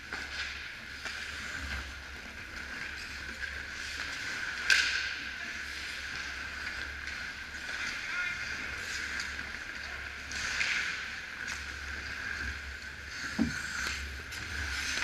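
Ice hockey play: skate blades scraping and swishing on the ice, with faint distant voices, and one sharp crack about five seconds in.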